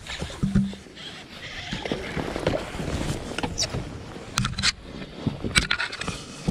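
Irregular knocks, clunks and sharp clicks on a bass boat as a freshly landed smallmouth bass is handled, with a brief low hum about half a second in.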